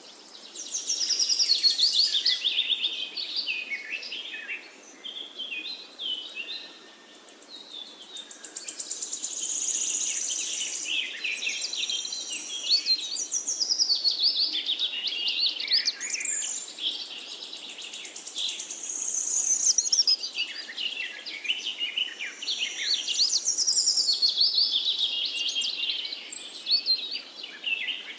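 Songbirds chirping and singing: many quick, high chirps and trills overlapping, dipping briefly about five seconds in.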